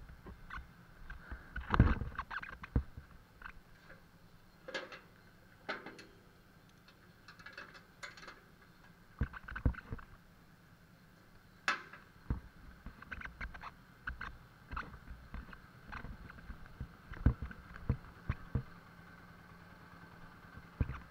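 Irregular knocks and clunks from a motorcycle being moved and parked in a garage, the loudest about two seconds in, over a faint steady hum.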